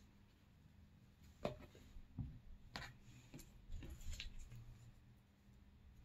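Faint handling sounds: a few light taps and rustles, scattered between about one and a half and four seconds in, as hands move paper strips and a glue bottle on a tabletop.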